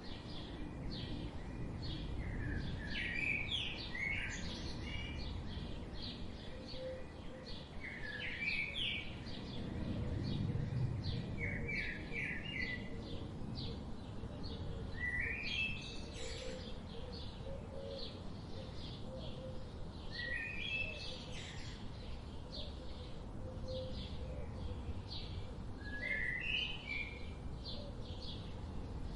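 Songbirds singing: a short phrase of quick notes comes about every four to six seconds, among many brief high chirps, over a steady low rumble of outdoor background noise.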